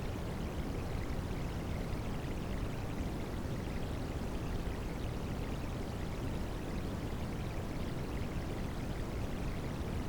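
Recorded rain and running-water sound blended with white noise: a steady, unchanging rush, strongest in the low end.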